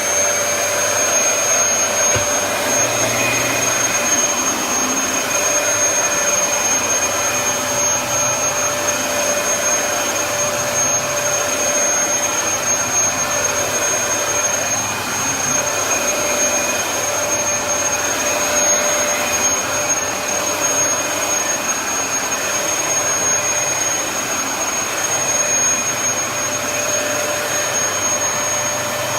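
Dyson DC33 upright vacuum cleaner running steadily, a high, even motor whine over the rush of air.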